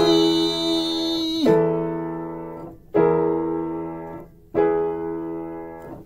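Piano playing the closing chords of a song: four chords struck about a second and a half apart, each left to ring and fade, the last one dying away.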